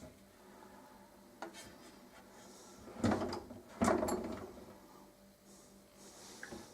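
IKEA kitchen cupboard being handled: a light click about a second and a half in, then two louder knocks as the door and fittings are moved, each trailing off in a short rattle.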